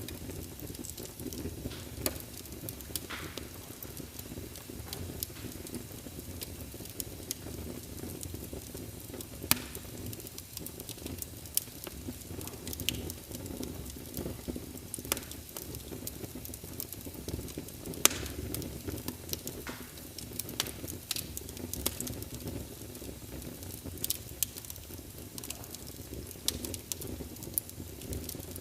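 Wood fire burning with a steady low rush and irregular sharp crackles and pops scattered throughout, the loudest about a third of the way in and again past the middle.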